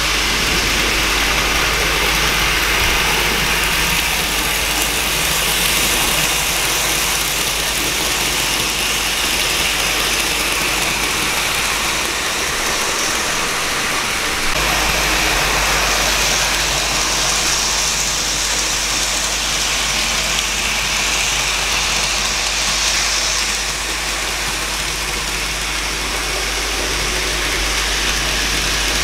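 N gauge model trains running on the layout: a steady hiss and rumble of small motors and wheels on the track, with a low hum that drops out briefly about halfway through.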